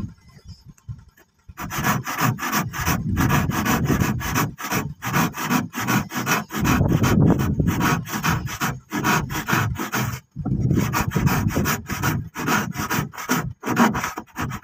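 Hand saw cutting through a wooden plank in steady back-and-forth strokes. The sawing starts about a second and a half in and stops briefly near ten seconds before going on.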